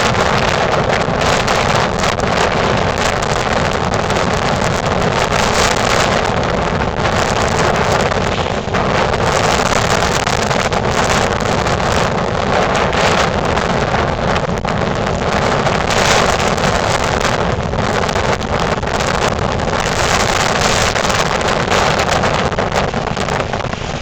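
Blizzard wind blowing hard across the microphone: a loud, steady rushing and rumbling noise that never lets up.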